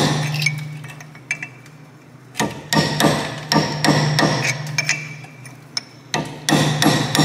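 Hammer striking a chisel against the front wheel hub's steel dust cap to knock it off: sharp metal-on-metal blows in quick clusters, each with a short ring, and a brief lull about a second in.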